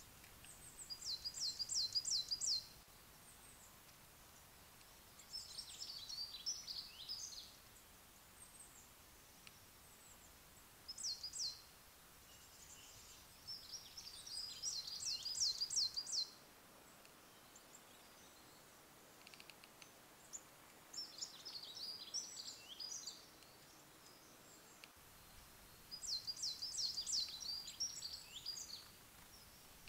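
Small woodland songbirds singing: short phrases of rapid, high repeated notes, each lasting one to three seconds and coming every few seconds, over a faint background hiss.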